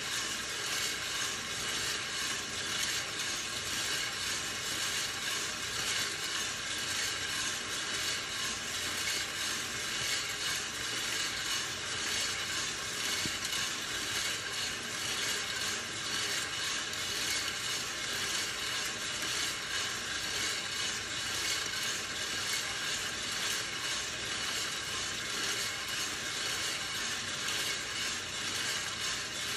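Hottop drum coffee roaster running: coffee beans tumble and rattle in the rotating drum over a steady whir. The beans are still pale, early in the roast before first crack.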